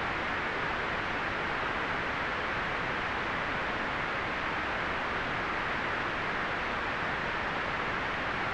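Steady synthetic white noise, an even hiss without change, strongest in the upper mids and rolled off in the highest treble.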